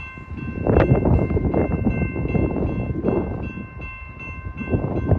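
Intermodal freight train passing over a grade crossing: a rumble with irregular loud clanks from the cars on the rails. A steady high ringing with small regular breaks runs over it, typical of a crossing signal bell.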